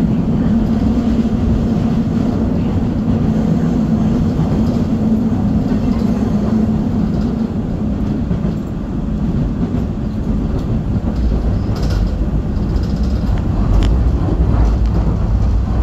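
Seoul Metro Line 2 train running on the track, heard from inside the car: a steady rumble of wheels on rails with a constant hum that fades about halfway through. The low rumble grows heavier over the last few seconds, with a few sharp clacks.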